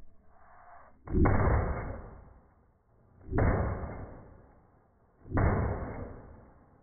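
Three handgun shots fired about two seconds apart, each a sharp report that dies away over about a second.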